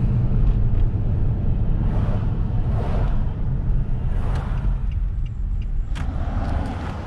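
Engine and road rumble of a slow-moving car, heard from inside the cabin: steady and low, with a few passing swells of noise and a sharp click about six seconds in.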